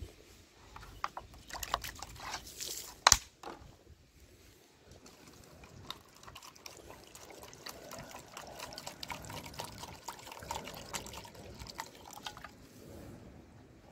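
Water poured from a plastic bottle into a bowl, trickling and splashing. There are scattered clicks in the first few seconds and one sharp knock about three seconds in.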